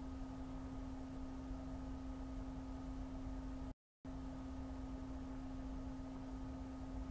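A steady low hum, one held tone over faint hiss, cut to complete silence for a fraction of a second about four seconds in.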